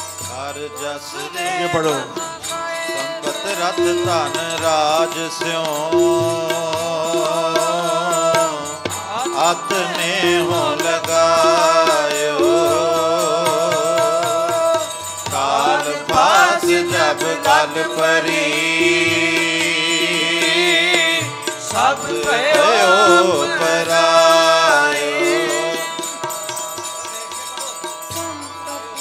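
Sikh kirtan: a sung devotional hymn with harmonium and tabla. A wavering, ornamented vocal line runs over the harmonium's held notes, with the tabla's low strokes beating underneath.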